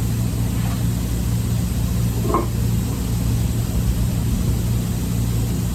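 Steady low drone of an idling engine, with a brief faint sound about two seconds in.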